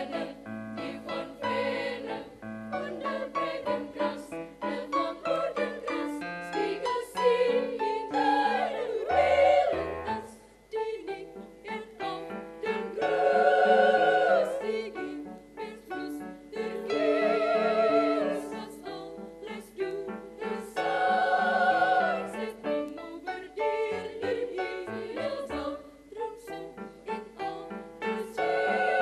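Female choir singing in parts, several voices together, with a few long held chords that waver with vibrato.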